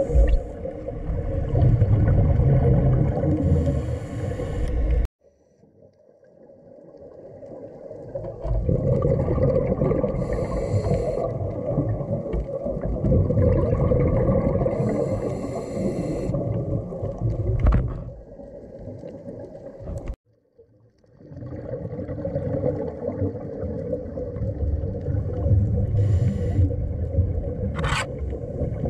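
Underwater sound through a diving camera: a scuba diver's regulator breathing, with bursts of exhaled bubbles every few seconds over a steady low rumble. The sound cuts out abruptly twice and comes back.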